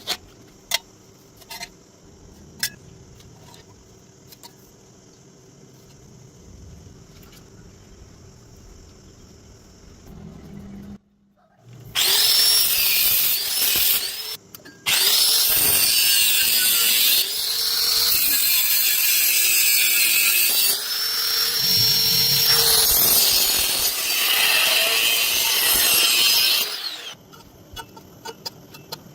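Angle grinder grinding metal in several long passes, its whine dipping and rising as it is pressed into the work, with brief breaks between passes. A few sharp clicks come before it starts.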